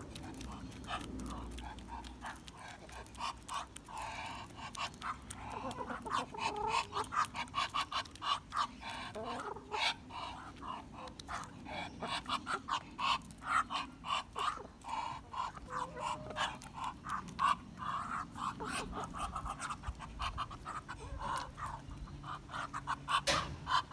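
Hens pecking sunflower seeds from a bare hand and off brick paving: a quick, uneven run of sharp beak taps, busiest from about a quarter of the way in, with soft low clucking between the taps.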